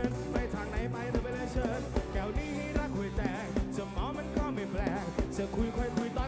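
Live rock band playing over a PA: a singer's melody over guitars and a steady drum beat.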